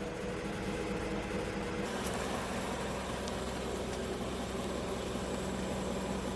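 Car engine running steadily, a low hum under even noise. The sound changes abruptly about two seconds in.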